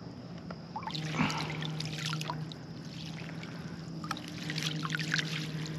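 Water splashing and trickling as a hand dip net is swept through shallow pond water. The splashes come in irregular bursts starting about a second in.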